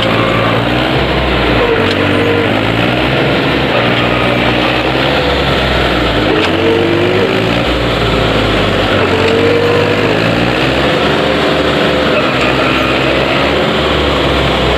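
Diesel tractor engine running, its pitch rising and falling every few seconds as it revs.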